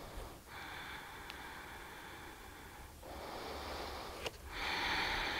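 A woman's slow, audible breathing close to the microphone: long breaths in and out, the last one louder.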